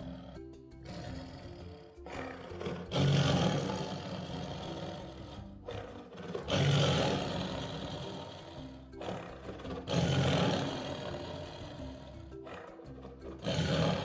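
Tiger roaring four times, about every three and a half seconds, each roar starting suddenly and trailing off, over background music.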